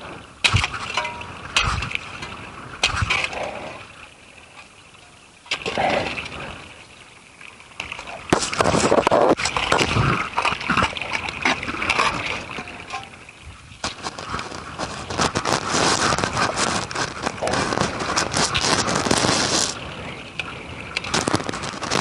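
A steel shovel digging into packed soil and buried debris. Its blade knocks sharply several times in the first few seconds, then scrapes and crunches through dirt almost without a break for about twelve seconds.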